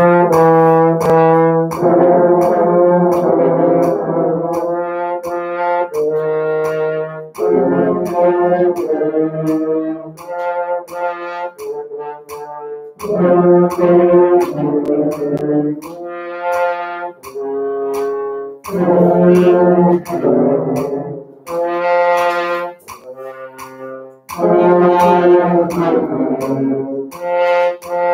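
French horns playing a slow note-by-note fingering exercise starting on low C. Phrases of clean single-horn notes alternate with denser stretches where several horns play together, as in call and response.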